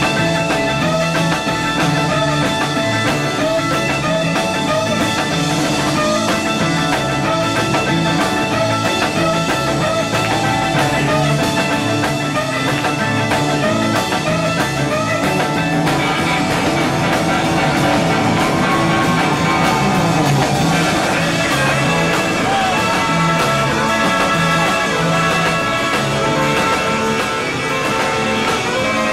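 Instrumental surf rock played live by a band: electric guitars over electric bass and drums, with a repeating bass line. The music moves into a new section about halfway through.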